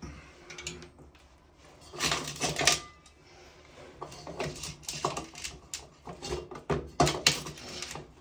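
Irregular metal clicks, clinks and scrapes of shower-valve parts being handled as the new pressure balance cartridge of a Jado shower valve is fitted. There is a short cluster about two seconds in, then a longer run of clicks from about four seconds on.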